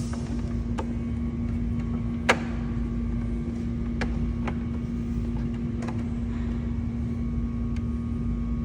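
Steady low mechanical hum with about six sharp clicks and taps of hard plastic and metal parts being handled and pressed together, the loudest about two seconds in, as a camera housing is worked onto its mount.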